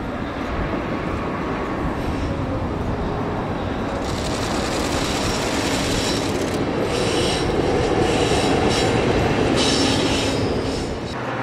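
Electric locomotive and a long train of container wagons rolling past on a curve: a steady rumble and clatter that grows louder. From about four seconds in there is intermittent high-pitched wheel squeal.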